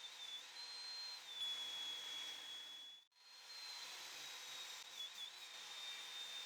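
Table saw running faintly, a thin high whine over hiss that dips slightly in pitch a few times as it cuts the strips, broken by a sudden moment of silence about three seconds in.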